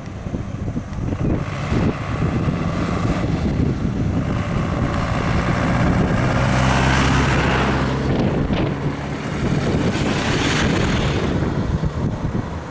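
A light truck's engine running as it drives slowly past close by, loudest about six to eight seconds in, with wind buffeting the microphone.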